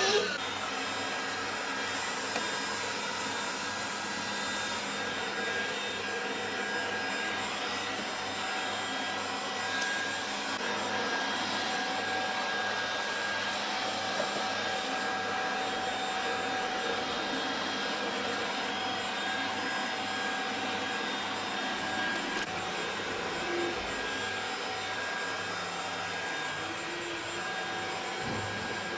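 Neatsvor X600 Pro robot vacuum cleaner running steadily: an even motor and suction hum with a few thin, steady whining tones.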